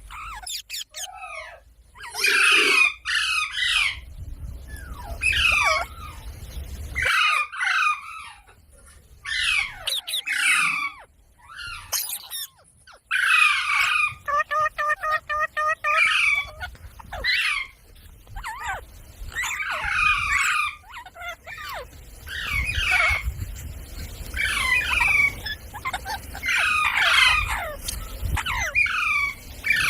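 Rose-ringed (Indian ringneck) parakeet squawking and chattering in a string of short, shrill bursts with brief pauses between them.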